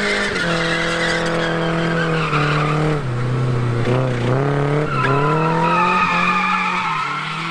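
A 2JZ-swapped Nissan 240SX S14 drifting: the Toyota inline-six is held high in the revs, dipping in the middle and climbing again, over squealing tyres.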